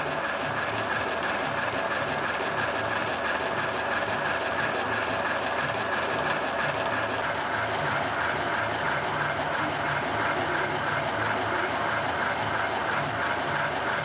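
Universal milling machine running a hobbing attachment, a steady mechanical drone with a faint regular pulsing and a constant high whine.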